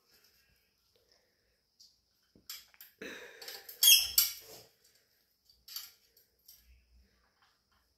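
Pet parrot squeaking while it feeds, with a burst of rustling and sharp high squeaks that peaks about four seconds in, then a few short chirps.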